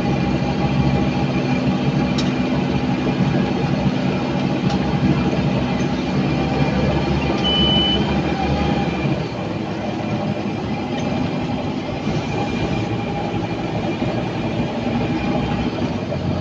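Scania N230UD Omnicity bus driving, its diesel engine humming steadily under a thin, steady, high turbo whistle. A short high beep sounds about seven seconds in, and the engine eases off a little about nine seconds in.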